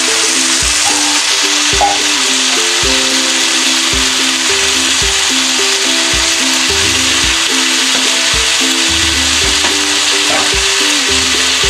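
Button mushrooms and green peas sizzling steadily as they fry in oil in a kadai, under background music with a regular beat.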